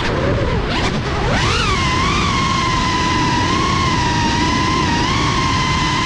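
Brushless motors of a GEPRC Cinelog 35 FPV cinewhoop drone whining. The pitch drops and sweeps just after the start, rises sharply about a second and a half in, then holds a steady high whine that wavers slightly with the throttle.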